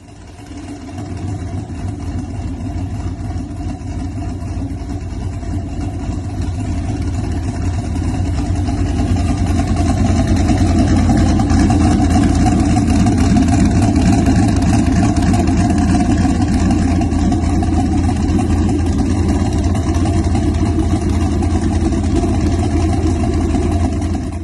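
Modified Pontiac G8's V8 engine with a loud aftermarket exhaust running steadily. It swells louder over the first several seconds, then holds at a steady, deep level with no sharp revs.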